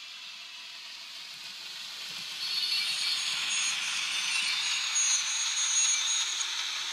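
Model Burlington Pioneer Zephyr train with a fitted Top Hobby sound decoder running past: the decoder's engine sound plays from its small speaker along with the running of the wheels and motor, heard as a high, rushing noise with faint thin whines. It grows louder about two and a half seconds in as the train comes close.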